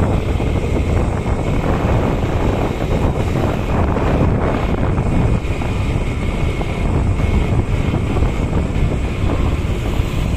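Steady wind rushing over the microphone of a moving vehicle travelling along a road, a loud, even rumble with no clear engine note.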